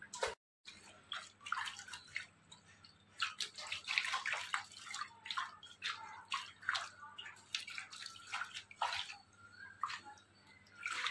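Water dripping and trickling into fish tanks, an irregular patter of small splashes.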